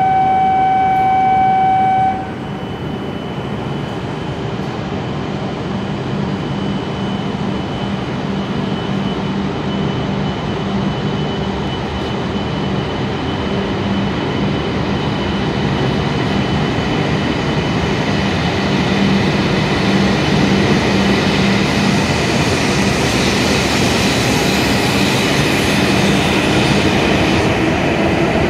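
E7-series Shinkansen train pulling out of the station and gathering speed past the platform. A steady electronic tone cuts off about two seconds in. After that, the train's running hum and the rush of wheels on rail build steadily, with a motor whine rising in pitch near the end.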